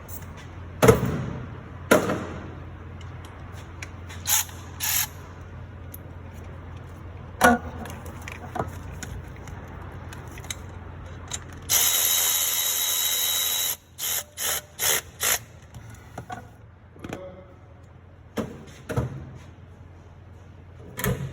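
Hand tools knocking on metal, then a small cordless power tool running for about two seconds and giving four short bursts, tightening a 10mm bracket bolt.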